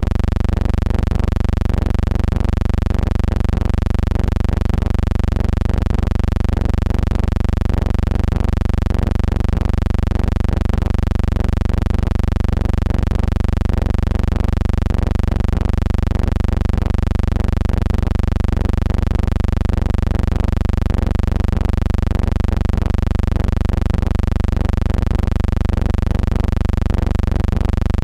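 Steady low electrical hum with many even overtones, loud and unchanging throughout, with a slight regular pulse in its level.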